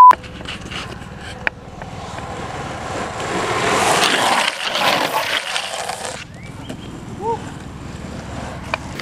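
Longboard wheels rolling fast over rough asphalt as a rider carves past: a rush of road noise that swells, is loudest about four seconds in, and cuts off about six seconds in. It opens with the tail of a test-tone beep.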